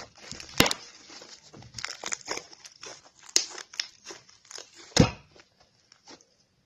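Homemade fluffy slime (clear glue, shaving foam and detergent activator) being squeezed and kneaded by hand, giving irregular crackles and pops, with two louder pops about half a second in and near five seconds in.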